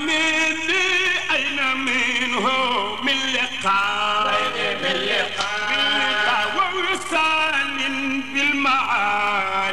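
Male voice chanting an Arabic devotional qasida in a drawn-out melismatic passage, with long held notes that waver and bend between lines of the refrain.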